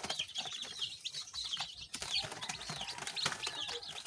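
A brood of newly hatched chicks peeping, many short high chirps overlapping without a break, with a few light clicks and knocks among them.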